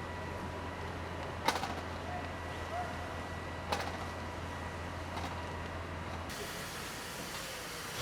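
Steady outdoor background noise with a low hum, broken by two sharp clicks, about a second and a half and three and a half seconds in; the hum cuts off abruptly near the end.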